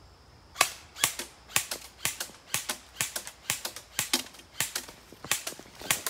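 Airsoft gun firing a rapid string of sharp shots, about four a second and unevenly spaced. The shots start about half a second in.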